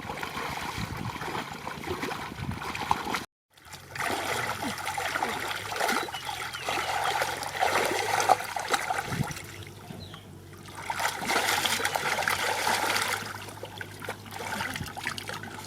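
Water splashing and trickling in irregular, shifting sloshes, with a brief complete dropout about three seconds in.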